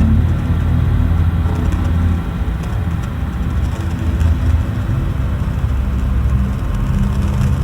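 Dark Halloween ambient soundscape: a deep, rumbling drone of sustained low tones under a steady hiss, with the low layer shifting about two seconds in.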